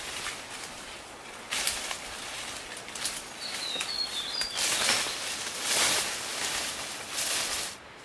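Footsteps and rustling of leaves and undergrowth as a person pushes through dense forest carrying a large banana leaf, in irregular surges. A few short, high bird chirps sound about halfway through, and the rustling cuts off abruptly near the end.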